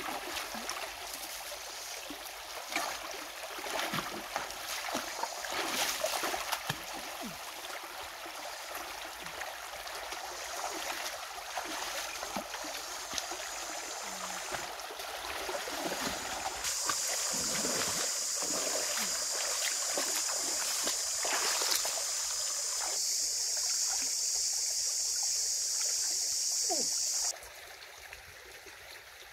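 Shallow rocky stream running, with splashes as bare feet wade through the water. About halfway through a steady high-pitched hiss comes in over it and cuts off suddenly near the end.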